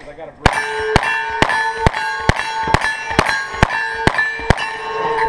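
About ten gunshots fired in quick, even succession, roughly two a second, each met by the clang of a steel target ringing. The ringing carries on between shots.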